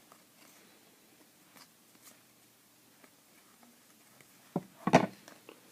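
Trading cards and a pack wrapper being handled, with faint rustles and light ticks, then two sharp, louder handling sounds a little before and about five seconds in.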